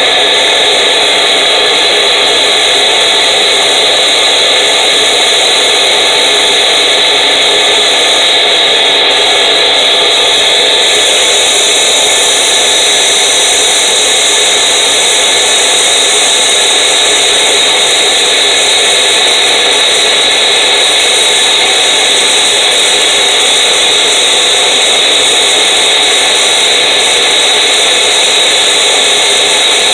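Vacuum cleaner running at full suction, a loud, even rushing noise with a high whine, as its hose sucks up ants from paving. The hiss grows brighter about eleven seconds in.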